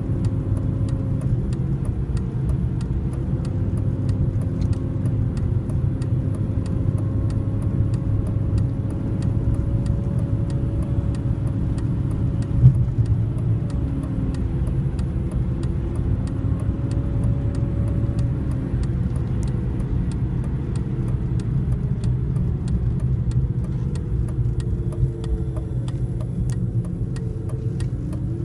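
A car's engine and road noise heard from inside the cabin while driving at steady speed, a low rumble with a hum that drifts slightly up and down in pitch. A single short knock about halfway through.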